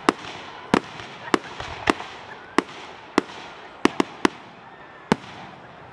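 Aerial firework shells bursting in a display: about ten sharp bangs over five seconds, some close together, spaced roughly half a second to a second apart.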